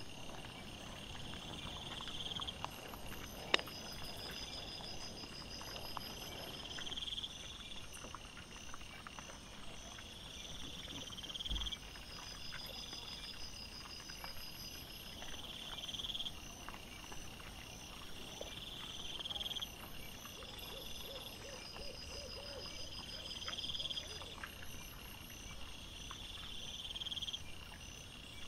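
Night insect chorus: a high chirring that swells and breaks off every two to three seconds, with a fainter, faster pulsing call above it. Faint rustles and clicks under it, and one sharp click about three and a half seconds in.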